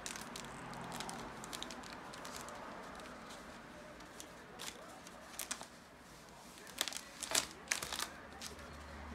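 Gold foil number balloon crinkling and crackling as it is handled and shaken, the sharp crackles coming in quick clusters, loudest about seven to eight seconds in.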